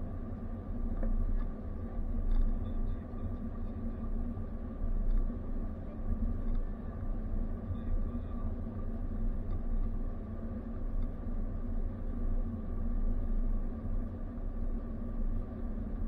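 Road noise inside a moving car's cabin: a steady low rumble from the engine and tyres at cruising speed, with a steady hum over it.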